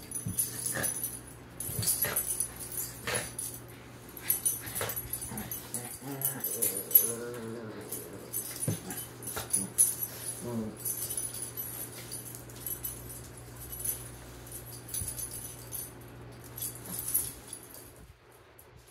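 Small dogs play-fighting: scuffling and irregular clicks of claws on a hard floor, with a dog whining briefly about six seconds in and again around ten seconds.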